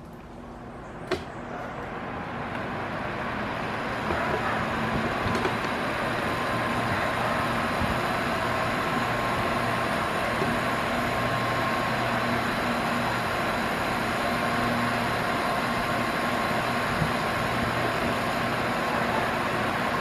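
Arno Ultra Silence Force VD40 40 cm fan on medium speed. After a click about a second in, it spins up over a few seconds, then runs steadily: an even rush of air with a faint low hum.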